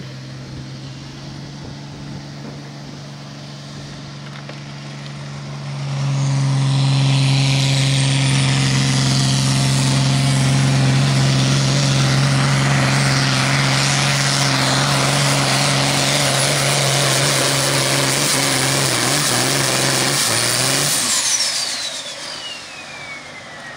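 John Deere 5020 pulling tractor's diesel engine running at a steady low speed, then opening to full throttle about six seconds in and holding there for about fifteen seconds as it drags the weight-transfer sled, before throttling back. As the engine drops off, a high whine falls steadily in pitch.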